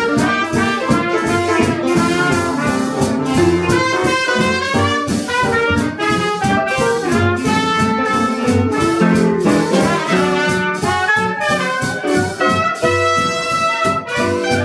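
Traditional New Orleans jazz band playing live: trumpet and clarinet playing together over plucked upright bass and drums keeping a steady swing beat.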